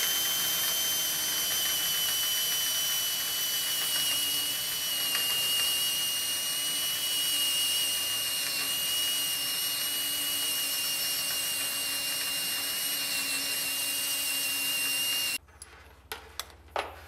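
Cordless drill running steadily at high speed, boring a bolt hole through a metal garage-door track, with a high whine that sinks slightly in pitch. It stops suddenly about fifteen seconds in, followed by a few light clicks.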